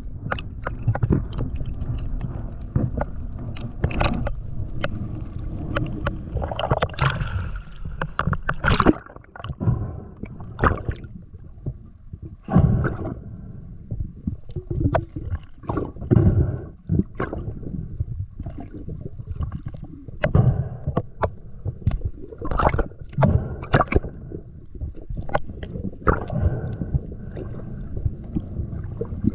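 Underwater sound through a diver's camera housing: a low, steady rushing of water with many irregular sharp knocks and clicks, as a speared fish is drawn in on the speargun line and handled.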